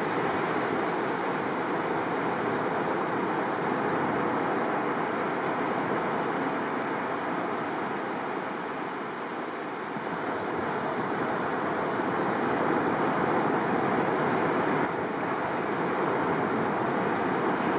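Surf breaking along a sandy beach: a steady rush of waves that eases about nine seconds in and swells again after.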